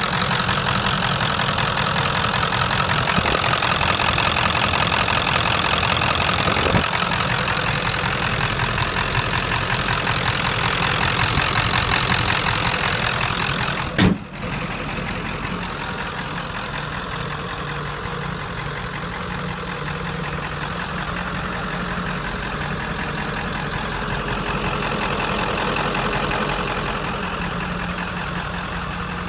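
A 7.3-litre Powerstroke turbo-diesel V8 idling steadily. The sound is bright and close for the first half, then a single knock comes about halfway, and after it the idle sounds duller and a little quieter.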